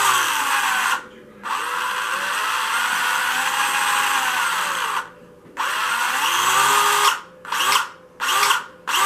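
Carrera Digital 1/32 Ford Mustang GTY slot car's electric motor whining at high speed, held on the track with its wheels spinning free. The power drops out briefly about a second in and again about five seconds in, the whine falling and winding back up each time. Near the end it is switched on and off in quick blips.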